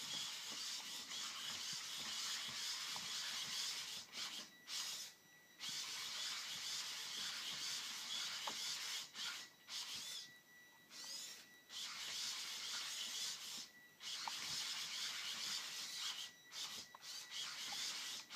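AX-12 servo motors of a hexapod robot whirring as it moves its legs and head: a high, buzzing gear whine that runs in stretches of a few seconds, broken by several short pauses, with an occasional tick.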